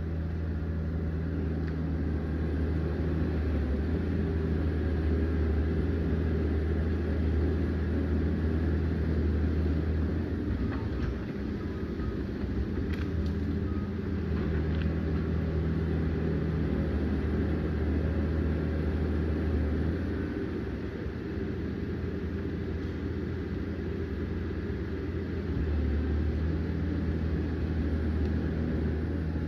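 Liebherr PR 744 crawler dozer's diesel engine working under load. Its low steady drone rises for several seconds at a time and eases off in between, three times over, as the blade pushes and the machine backs off.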